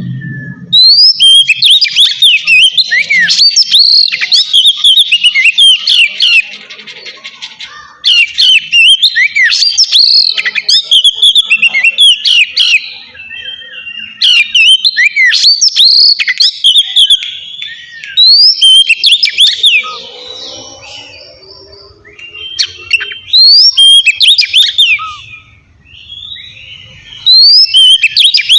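Oriental magpie-robin singing a loud, clear song in the ngeplong style: rapid runs of whistled notes sweeping up and down, delivered in several bursts with short pauses between them.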